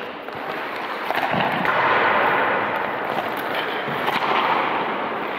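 Hockey skates scraping across ice, a hiss that swells about a second in and eases off, with a few sharp knocks such as pucks or sticks striking.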